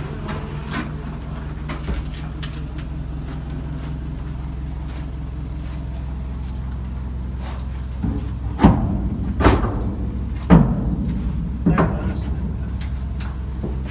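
Steady low hum of an idling engine, joined from about eight seconds in by a string of loud knocks roughly a second apart, with a few lighter ones after.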